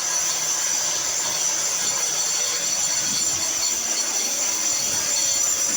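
Angle grinder with a disc grinding a concrete wall: a steady high-pitched whine over a rough grinding hiss.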